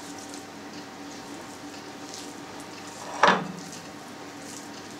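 Hands punching down and gathering soft yeast dough in a glass bowl, then lifting it out: quiet soft handling sounds, with one sharp knock about three seconds in.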